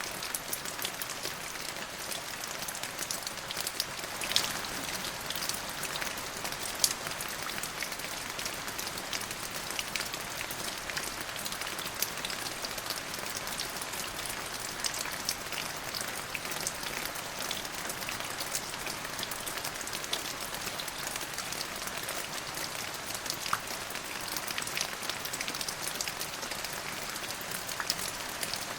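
Steady rain falling on a surface, an even hiss with many individual drops ticking and pattering throughout.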